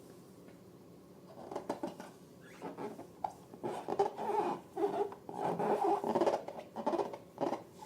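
Latex balloons being squeezed and handled, giving irregular squeaks and squishy rubbing sounds that start about a second and a half in.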